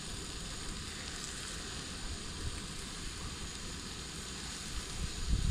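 Food sizzling in a frying pan on a portable gas camping stove, a steady hiss, with a few low thumps near the end.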